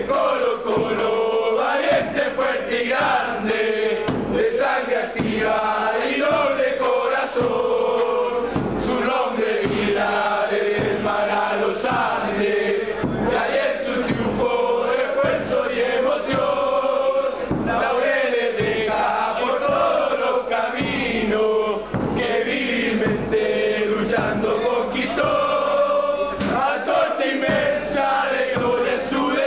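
Football supporters' chant sung continuously by a crowd of men, kept in time by a steady beating drum from a fan band.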